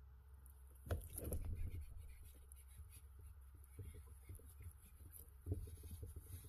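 Faint scratching and small knocks of a fishing rod and reel being handled and worked by an angler standing in a kayak, with a sharper knock about a second in. A steady low rumble lies underneath.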